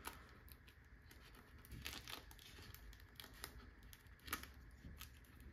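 Faint rustling and crinkling of a fabric strap faced with metal tape being pulled through a 3D-printed plastic strap adjuster buckle, with a few light clicks as it is worked.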